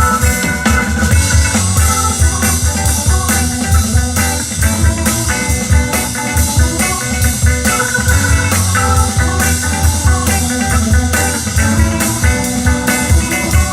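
Rock-style music with guitar and drum kit on a steady beat, played through the Victor JS-250 two-way speakers.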